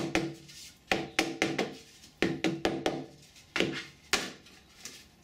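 A 3D-printed ABS mould being knocked and tapped to loosen the cast foam part: about ten sharp knocks at irregular spacing, several with a brief hollow ring after them.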